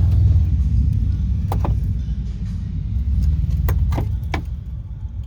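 A few short metallic clicks and clinks of a pry tool against the brake caliper and pad as the caliper piston is pried back, over a steady low rumble.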